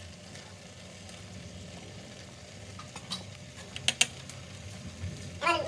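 Wok of cassava leaves, vegetables and small dried fish being stirred and tossed by hand while it cooks, over a faint steady background, with a few sharp clicks against the pan about three to four seconds in.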